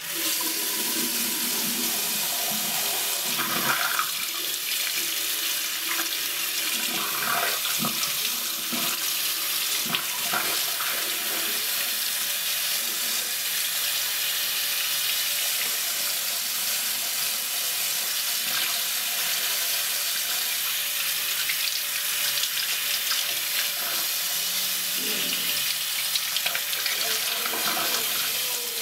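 A bathroom sink tap is turned on and runs steadily into a porcelain basin, while hands are washed under the stream, splashing irregularly now and then in the first ten seconds or so.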